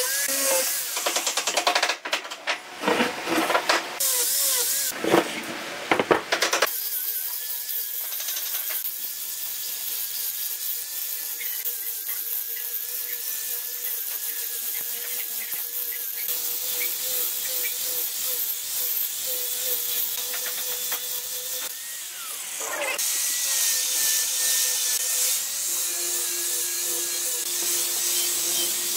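Handheld electric power tool working wood, its motor whining steadily with a high hiss. It starts and stops in short bursts for the first several seconds, then runs continuously, with a brief dip and rise in pitch near the end.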